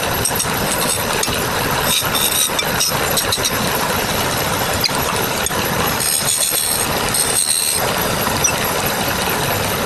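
Wood lathe running with a turning tool cutting the spinning wood: a steady noise with high squeals now and then, the clearest about two, six and seven and a half seconds in.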